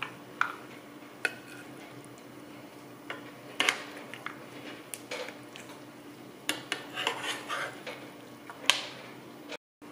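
Metal utensil scraping and clinking in a frying pan as rice is scooped out and served, in scattered short strokes with the loudest near the end.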